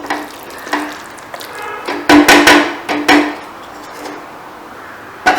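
Metal cookware knocking and clanking a few times with a brief ringing tone, the loudest strikes about two seconds in.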